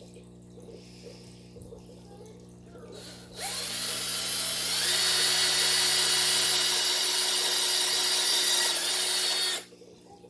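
Electric drill with a 3/16-inch bit drilling a hole in the filter's pipe: it starts a few seconds in, runs steadily for about six seconds with its whine stepping up in pitch soon after starting, and stops abruptly.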